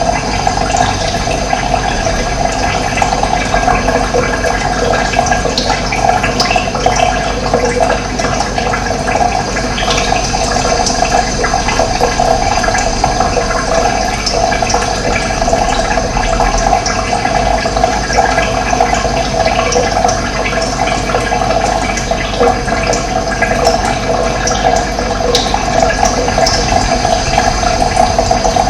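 Running water, a steady continuous rush with no pauses.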